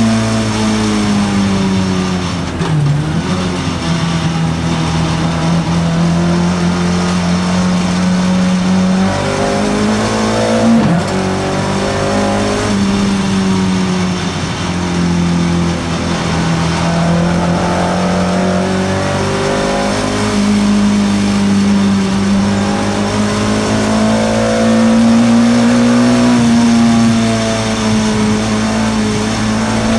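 Race car engine heard from inside the cabin, running hard at speed, its pitch dropping and climbing several times as the driver lifts off and gets back on the throttle.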